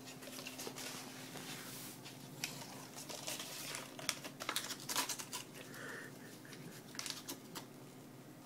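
A cat chewing and tearing a sheet of paper: irregular crinkling and ripping with sharp crackles, busiest around the middle and again near the end.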